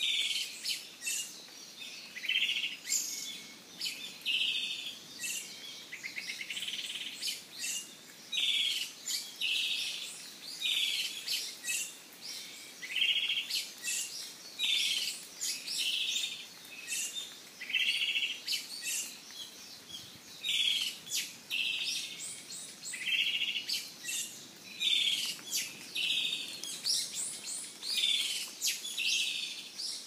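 Izu thrush (Turdus celaenops) singing: short whistled phrases repeated every second or two, often in pairs, with thin higher notes mixed in.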